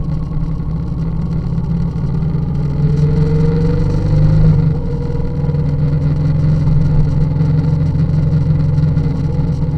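Vehicle engine running steadily while driving; about three seconds in its note rises for a second or so, then drops back.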